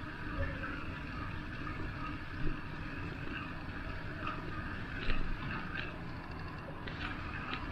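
Steady rush and low rumble of a bicycle rolling along a city street, with wind on the microphone. There are a couple of brief bumps and scattered light clicks and rattles in the second half.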